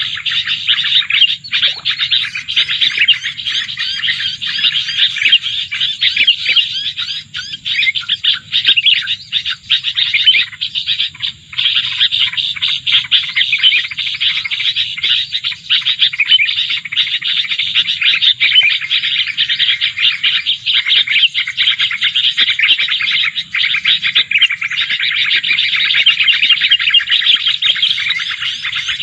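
Small songbirds chirping and trilling rapidly and without pause, many short notes overlapping in a dense, continuous chatter.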